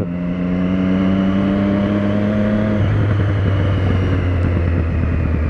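Motorcycle engine running under way, with a rushing noise of moving air over the microphone; about halfway through the engine note drops and holds at a lower steady pitch.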